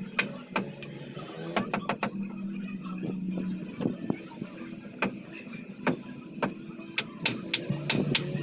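Hammer blows on a wooden stud wall frame: irregular sharp strikes, with a quick run of blows near the end.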